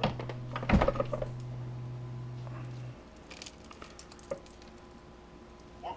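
Metal tools knocking and clattering against the stripped drill charger as its copper winding is worked loose, with a few sharp knocks near the start and lighter clicks and handling after. A steady low hum stops about three seconds in.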